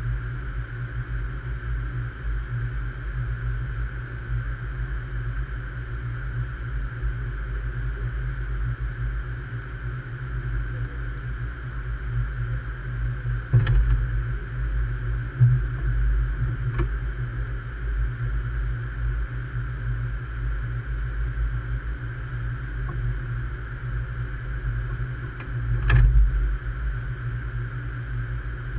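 Steady low hum of a train standing at an underground station platform, with a few short knocks: one about halfway through, another a few seconds later, and one near the end.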